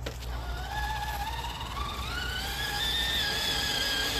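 Electric motor and geartrain of an RC crawler whining under load as it tries to climb a hump while towing a trailer. The whine rises slowly in pitch as the motor spins up.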